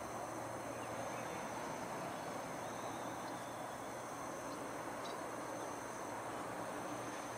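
Steady tropical ambience: insects shrilling continuously in two high, even tones over a constant rushing hiss.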